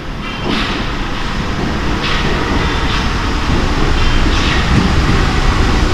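RATP MF77 metro train approaching through the tunnel and running into the station: a rumble that grows steadily louder, with three bursts of wheel clatter on the rails. A low whine comes in near the end.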